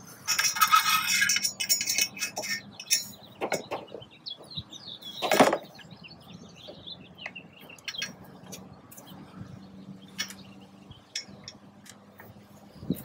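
Handling noises of a plastic rifle hard case being shifted and lined up on a roof rack's rails: a scraping shuffle near the start, scattered clicks and taps, and one louder knock about five seconds in. Birds chirp faintly in the background.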